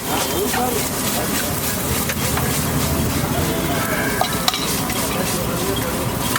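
Egg dish frying in a hot street-stall pan, sizzling steadily as it is stirred, with a few sharp clicks.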